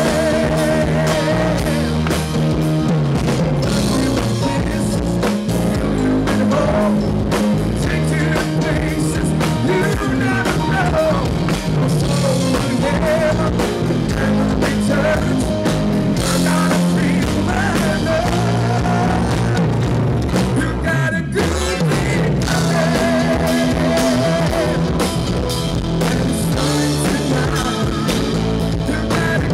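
Live rock band playing a song: drum kit, electric guitar and bass guitar behind a male lead singer.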